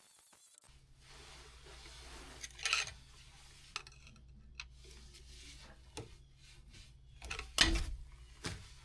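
Scattered clinks and knocks of metal being handled, five or so spaced a second or two apart, the loudest near the end, over a faint steady low hum.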